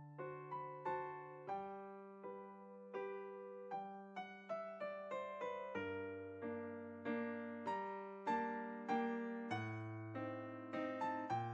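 Background music: a solo piano playing a slow, gentle piece, chords and single notes struck and left to ring over low bass notes.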